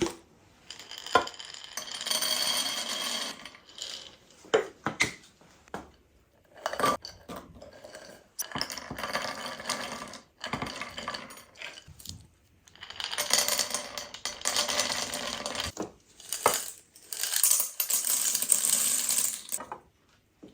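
Metal kitchen utensils scraping and clinking against pots and dishes, in four stretches of about two to three seconds each, with sharp clinks in between.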